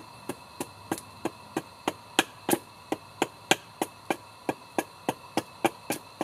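Hatchet chopping a wooden table leg down on a stump: a steady run of about twenty short, sharp wood-on-wood strikes, roughly three a second.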